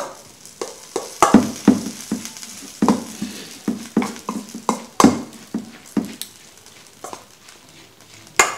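A spoon stirring bibimbap (rice with vegetables, meat and red pepper paste) in a stainless steel bowl: irregular wet scraping and knocking strokes against the metal, about one or two a second, with a sharper clink near the end.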